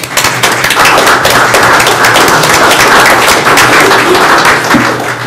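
Applause from a room full of people: many hands clapping in a dense, even patter that tapers off near the end.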